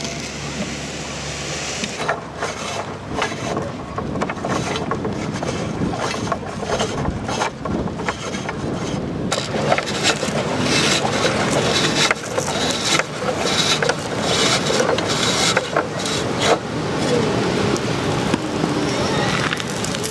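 Wind buffeting the microphone, with irregular knocks and scrapes throughout.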